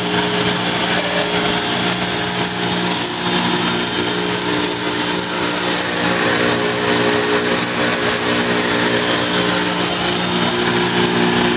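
Fortuna universal grinder's belt-driven internal (ID) grinding spindle running steadily at about 3,400 RPM: a steady high hiss over several even hum tones from the machine's motors.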